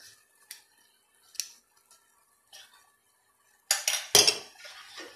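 A metal spoon clinking against a metal cooking pot: a few light taps, then a louder clatter of metal on metal a little before four seconds in.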